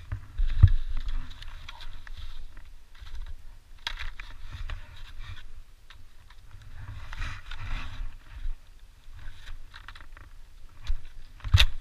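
Skis shuffling and scraping over snow, with pole tips crunching in, in irregular patches over a low rumble of wind on the microphone; one sharp click near the end.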